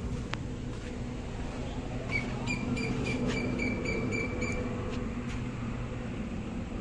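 Steady low hum of a vehicle engine running. In the middle, a run of quick high-pitched beeps comes for about two and a half seconds, about three or four a second.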